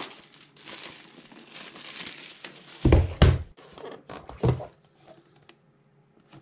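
Clear plastic shrink-wrap crinkling as it is peeled off an iPad Pro's cardboard box, followed by two loud dull knocks about three seconds in and a softer one a second and a half later as the box is handled.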